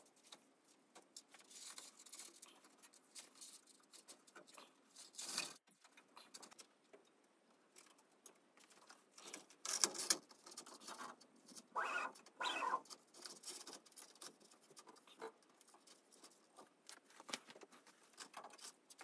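Faint, irregular rustling and light clicking of hands handling a self-adhesive LED light strip and pressing it along the inside wall of a laser cutter's cabinet, with a few louder rustles scattered through.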